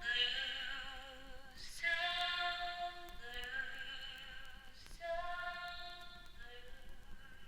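Song outro fading out: a female-sounding vocal line of long held notes with vibrato, each phrase starting about every two seconds and each quieter than the last.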